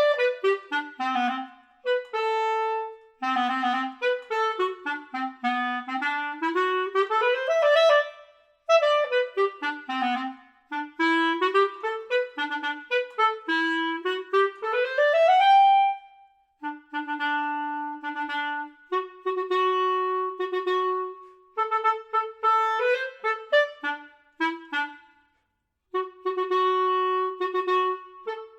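Solo clarinet playing a lively melody: quick detached notes and fast runs that sweep up and down, then longer held notes in short phrases.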